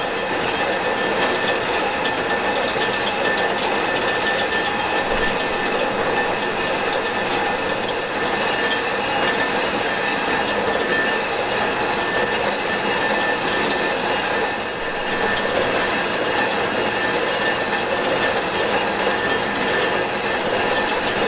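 Accu-Turn 8944 brake lathe taking a slow cut on a brake drum: the spinning drum and cutting bit give a steady, even metallic ringing with several high steady tones, over the lathe's running motor.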